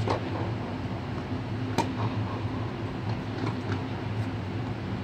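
Tennis racket striking a ball in a baseline rally, with a sharp pop about two seconds in and fainter ticks of other hits and bounces. Underneath runs a steady low hum from the air-supported dome's blowers.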